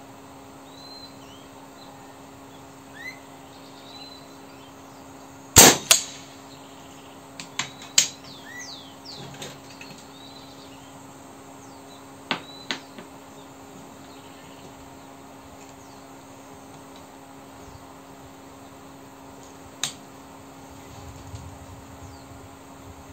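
A URKO III PCP air rifle fires once with a sharp crack about five and a half seconds in. Sharper metallic clicks follow around twelve seconds in, as the bolt is worked to load the next slug, and there is another click near twenty seconds. Birds chirp faintly during the first few seconds over a steady low hum.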